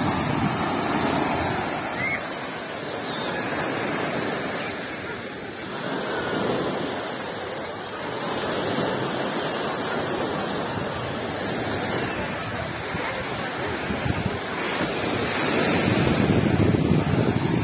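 Sea surf washing on a beach, a steady rushing noise that swells and eases in slow surges and is loudest near the end.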